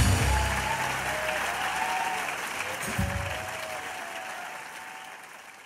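Audience applause with a few cheering voices, following the last low note of the song. The applause fades out steadily to silence.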